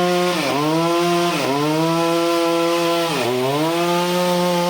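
Bonhoeffer two-stroke chainsaw running at high revs while cutting wood. Its engine pitch drops sharply and climbs back three times as the load changes.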